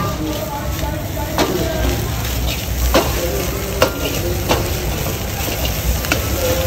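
Rice frying in a steel wok, sizzling as it is stirred and tossed with a metal ladle, with occasional sharp knocks of the ladle against the wok. Beneath it runs the steady low rumble of the gas burner.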